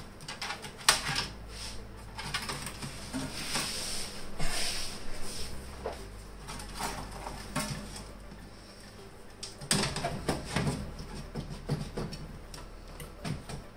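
Modular power-supply cables being handled and pushed through a PC case: irregular rustling with scattered clicks and light knocks, coming in short clusters.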